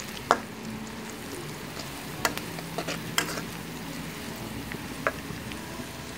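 Chopped garlic and onion sizzling in hot oil in a wok, stirred with a metal spatula that scrapes and knocks against the pan a few times.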